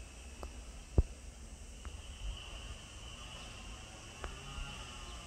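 Insects chirring steadily in a high band, growing a little stronger after about two seconds, over a low rumble. A sharp click about a second in is the loudest sound, with a few fainter ticks around it.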